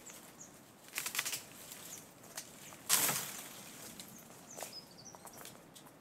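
Short rustles and clicks: a quick cluster about a second in and a louder, brief rustle about three seconds in. Faint bird chirps sound in the background.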